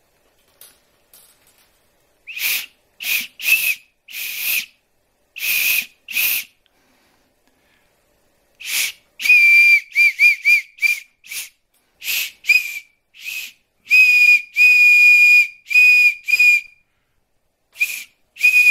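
Homemade deer antler whistle blown in a string of short, high-pitched test blasts as its tone is fine-tuned. The first blasts are breathy and airy; from about nine seconds in the tone comes out clearer and steadier, with a few quick warbling toots and some longer held notes.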